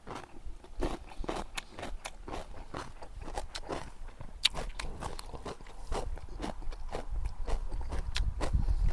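Close-miked crunching and chewing of kimchi: many short, irregular crisp crunches as the cabbage and radish are bitten and chewed.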